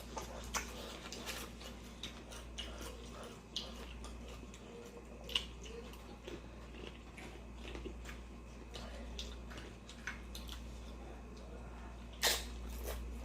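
Close-up eating sounds of a person chewing nacho dip: irregular soft clicks and smacks, with a steady low hum underneath and a louder noisy burst near the end.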